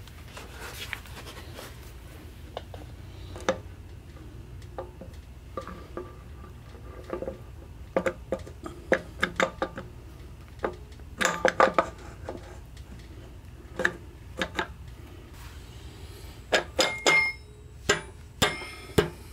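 Metal parts clinking and tapping as the reverse idler gear and its steel cover plate are fitted over the studs of a Ford 5-speed tractor transmission case. The clicks are scattered, with a quick cluster about halfway through and several more near the end, over a steady low hum.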